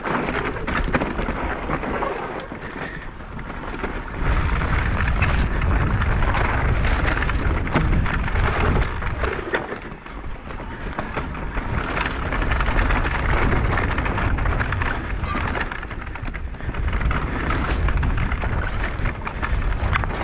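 Mountain bike descending a dry, stony dirt trail: tyres rolling over loose gravel and the bike rattling over stones, with wind buffeting the microphone, heaviest from about four seconds in.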